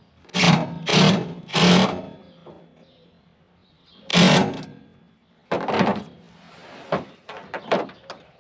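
Power drill/driver running in short bursts as it drives fasteners tight: three quick bursts, another after a pause, then a run of shorter ones near the end.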